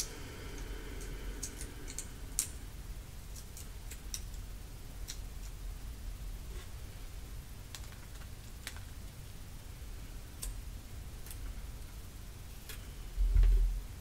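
Light handling sounds of adhesive foam squares being peeled from their paper backing strip: scattered soft clicks and ticks. A single low thump about a second before the end is the loudest sound.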